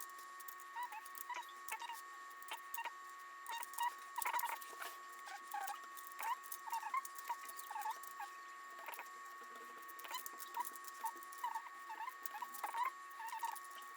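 Plastic keycaps being handled and sorted, played sped up in a time-lapse: a rapid run of small clicks and clatter with high squeaky chirps several times a second.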